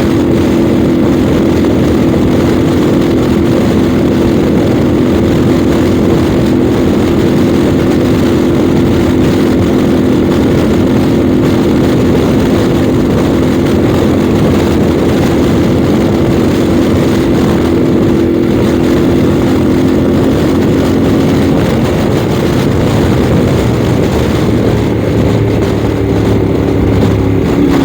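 Yamaha Ténéré 700 World Raid's parallel-twin engine running at a steady cruising speed under heavy wind noise. About twenty seconds in, the engine note drops and settles lower.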